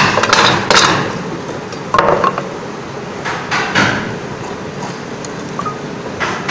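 Irregular sharp knocks and clinks of woodworking hand tools on a wooden workbench, a cluster in the first second, more about two and four seconds in and one at the end, over steady workshop background noise.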